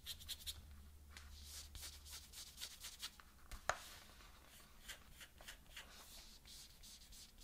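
Faint handling noise of Sony WH-1000XM4 headphones: fingers rubbing and scraping along the headband, with light ticks and one sharper click a little past halfway.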